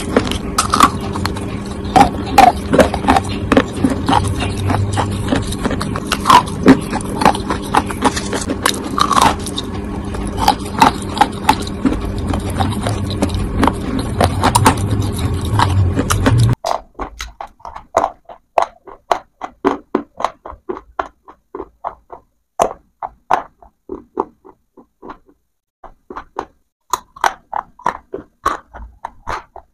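Close-miked crunching of dry baked clay: many sharp cracks and crumbly crunches as pieces are bitten and chewed. For the first half a steady low hum runs underneath. After that the hum is gone, and the crunches come clean and crisp in quick clusters with short gaps.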